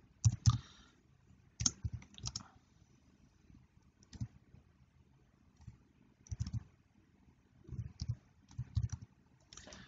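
Computer keyboard typing: irregular keystrokes in short runs with pauses between them.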